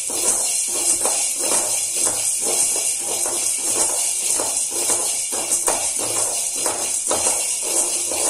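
Whole black peppercorns being dry-roasted in a metal pan and stirred with a metal spatula: a rattling scrape of the peppercorns against the pan, about two to three strokes a second.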